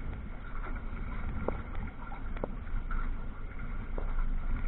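Wind buffeting the microphone with a steady rumble, over water splashing against an aluminum Grumman 17 canoe hull under sail. A few sharp ticks come through, about one and a half, two and a half and four seconds in.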